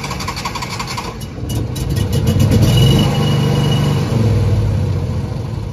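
An engine turning over on its starter for about a second with fast, even pulses, then a deeper low engine rumble that swells to its loudest around the middle and slowly eases off.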